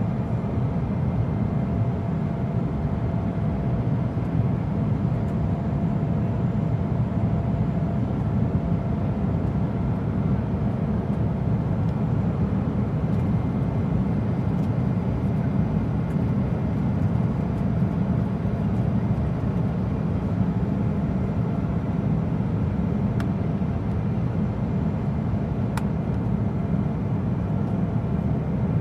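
Cabin noise inside an airliner during takeoff: a steady, low rumble of the jet engines, with a faint steady tone above it and two faint ticks in the last third.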